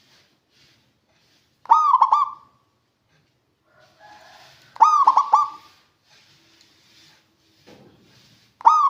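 Zebra dove (perkutut) singing: three short bursts of its quick, warbling coo, about three seconds apart, the last starting just before the end.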